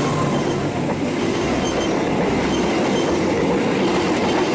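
Diesel-hauled passenger train carriages passing at speed right beside the track: a loud, steady rushing noise of the wheels running on the rails.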